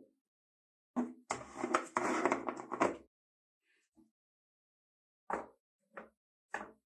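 Clear plastic tub scraping and rustling as it is shifted about on a wooden tabletop for a couple of seconds. Then three short knocks as a rusty steel axe head is set down into the plastic tub.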